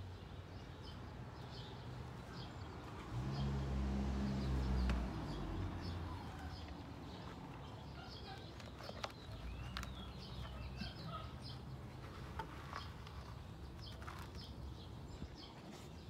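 Wild birds chirping in quick short calls, with a louder low rumble from about three to five seconds in.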